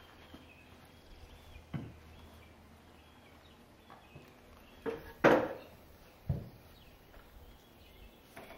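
A heavy log being shifted on a sawmill's deck: three sharp knocks, about two, five and six seconds in, the middle one much the loudest with a short ring, and a few light clicks between them.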